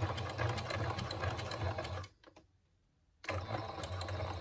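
Electric sewing machine stitching a box stitch across the thick, layered end of a bag strap: a fast run of needle strokes over a low motor hum that stops about two seconds in, pauses for about a second, then starts up again.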